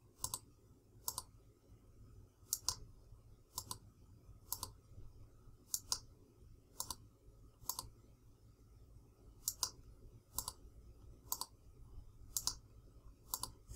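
Computer mouse buttons clicking: sharp single and doubled clicks about once a second, over a faint low hum.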